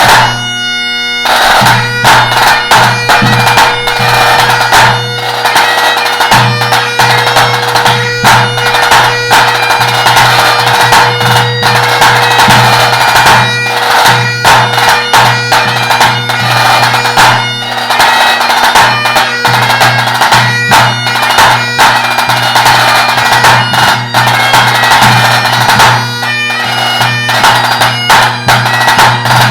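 Great Highland bagpipe playing a tune over its steady drones, with a tenor drum beating along throughout. A quick rapid run of drum strokes opens as the pipes come in.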